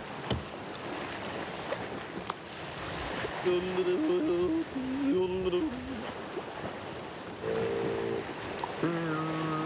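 Choppy sea washing and breaking on rocks, a steady rush of surf with wind. From about three and a half seconds in, a melody of pitched notes comes in over it, stepping up and down, then settling into long held notes near the end.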